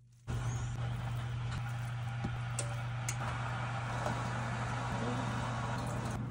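A motor or fan starts abruptly and runs with a steady low hum and a broad whooshing noise, with a few light clicks over it.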